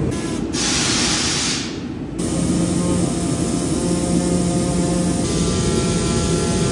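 An impact wrench runs on a wheel's lug nuts in one hissing burst from about half a second to just under two seconds in, over steady shop noise. A steady low hum with faint overtones sets in about two seconds in.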